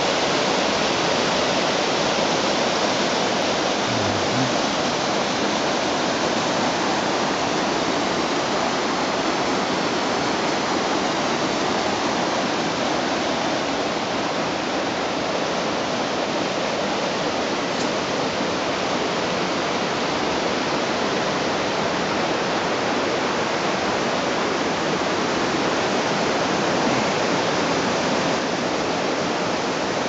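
Waterfall pouring over rock into a mountain river: a steady, even rush of falling water.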